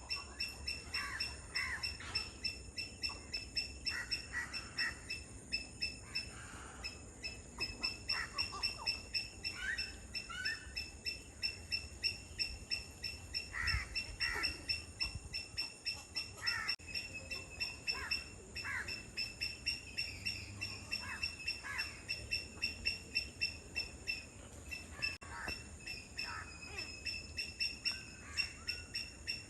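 Wetland birds calling: many short, varied calls scattered throughout, over a steady, rapidly pulsing high trill that never stops.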